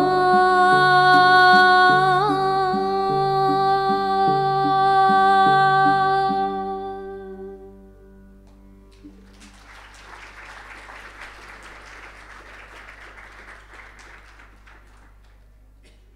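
A woman's voice holds a long final sung note over a repeating plucked-string pattern, both fading out about seven seconds in. After a short pause, audience applause follows, much fainter, for about six seconds.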